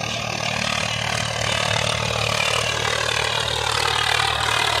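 Swaraj 855 tractor's three-cylinder diesel engine running steadily under heavy load as it drags a nine-tine tiller through hard-packed soil.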